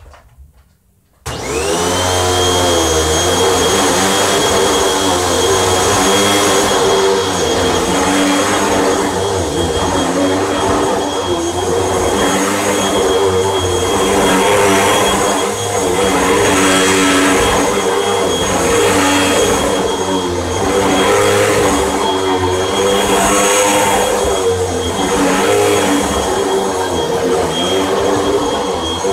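Hoover WindTunnel Rewind bagless upright vacuum cleaner switched on about a second in, its motor whine rising as it spins up and then running steadily over a rug, the level swelling and dipping every few seconds.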